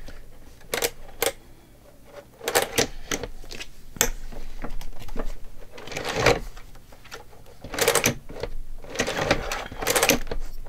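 Cinch binding machine's wire closer working: a string of irregular plastic-and-metal clacks and rattles as the binding wire is pressed and crimped tighter so the rings stay shut. The clatter grows busier in the second half.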